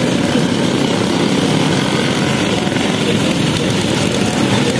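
Many Vespa scooter engines running together as a large group rides along, a steady, dense mechanical din.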